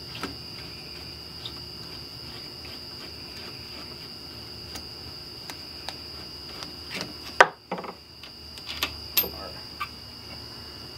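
Light, scattered metal clicks of a hex wrench backing out the rear-cap bolts of a framing nail gun, with a sharp knock about seven seconds in and a few smaller knocks after it as the tool is handled on a wooden workbench. A steady high-pitched chirring of crickets goes on behind.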